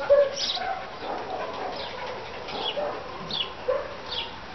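Small birds chirping: short, high, falling chirps every half second or so, with a few short lower calls in between, the loudest right at the start.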